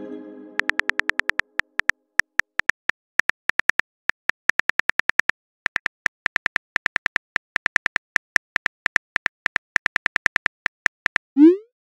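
Texting-app sound effects: a chime fading out, then a long run of quick keyboard-tap clicks, about ten a second with short pauses, as a message is typed. A short rising whoosh near the end marks the message being sent.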